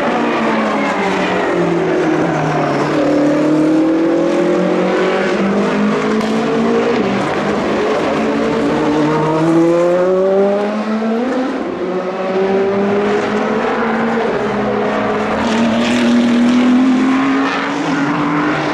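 Hypercar endurance prototype race cars, a Porsche 963 among them, passing on track. Several engine notes overlap, each falling as the car slows and rising again as it accelerates away, a few times over.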